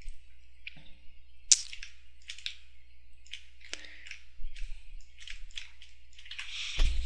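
About a dozen faint, irregularly spaced small clicks and ticks over a steady low electrical hum, with a short louder rustle near the end.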